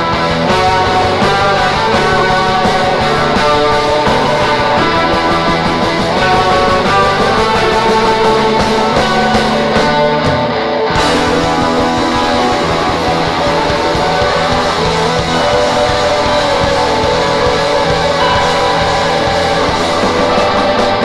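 Live rock band playing an instrumental passage, with electric guitar to the fore over bass and drums; the sound briefly thins out about halfway through before the band comes back in full.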